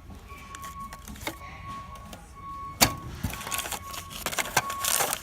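Background music playing, with scattered clicks, a sharp knock about three seconds in, and a busy run of small clicking and rattling near the end.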